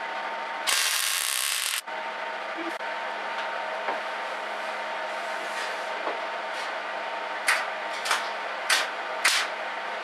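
Metalworking noise on a steel welding table: a harsh hiss about a second long near the start, then four short scraping strokes near the end, over a steady hum.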